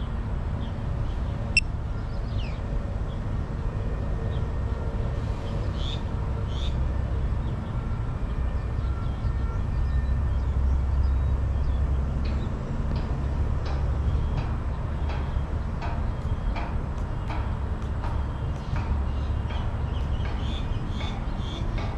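A steady low rumble, swelling slightly about halfway through, with faint high chirps scattered over it.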